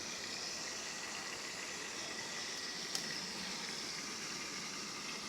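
Dumplings frying in hot oil: a steady bubbling sizzle, with one short click about three seconds in.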